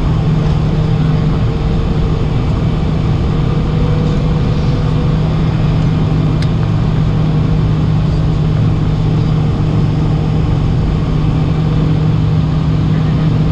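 Steady cabin drone of a Boeing 747 taxiing slowly on its jet engines at idle, heard from inside the cabin: a low, even hum with no rise or fall.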